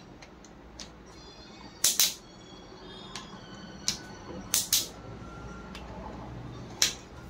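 Click-type torque wrench giving sharp clicks as the cylinder head bolts are pulled up to torque. The clicks come every second or two, several in close pairs.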